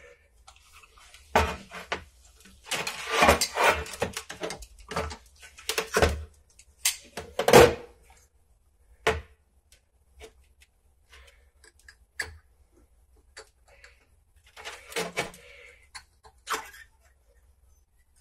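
Small hand tools clicking, scraping and knocking against the alloy body of a Honda CB 250 front brake master cylinder while the piston's circlip is pried out. Metal parts tap in a metal tray. There is a busy run of clicks and scrapes for the first several seconds, then scattered clicks, with another short cluster about three quarters of the way through.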